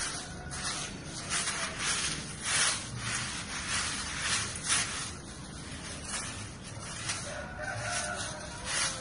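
A rooster crowing in the background, once near the start and again about seven and a half seconds in, over repeated short bursts of rustling noise.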